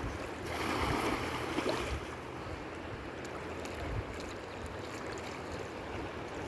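Steady rush of flowing river water, louder for a second or so near the start.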